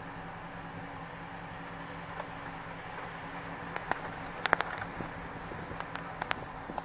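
A steady low background hum, with a few short sharp clicks scattered through the second half and a small cluster of them about halfway through.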